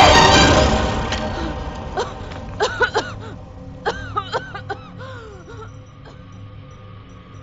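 Film score music, loud at first, fades away over the first second or two. It gives way to two quick clusters of short chirping sound effects over a steady low hum.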